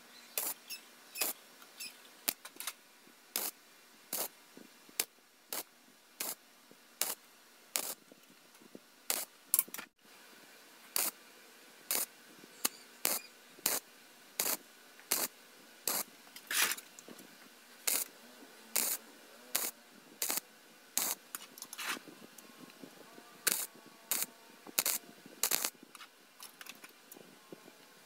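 MIG welding torch laying a run of quick tack welds, joining a thin steel sheet to a hollow steel frame: a series of short crackling arc bursts, roughly one every half second to a second.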